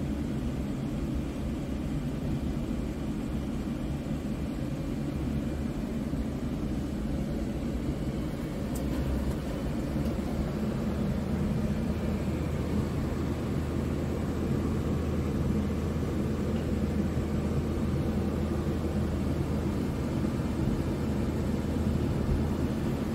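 Scania R truck's diesel engine idling steadily, heard from inside the cab as a low, even hum. It grows slightly louder about ten seconds in.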